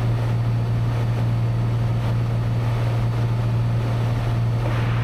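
Cessna 182's engine and propeller droning steadily in level cruise, heard from inside the cabin: one strong, even low hum with a rushing hiss above it.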